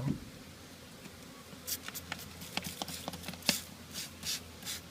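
Hand spray bottle squirting sugar water onto a package of honeybees, a quick series of short hissing sprays starting after a second or so.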